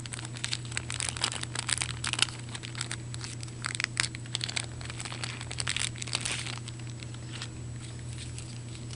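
Plastic packaging crinkling and crackling in the hands, irregular crackles that thin out after about seven seconds, over a steady low hum.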